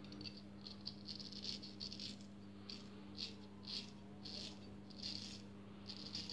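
Freshly honed straight razor scraping stubble off a lathered cheek and jaw: a run of short, crackly scraping strokes, one or two a second.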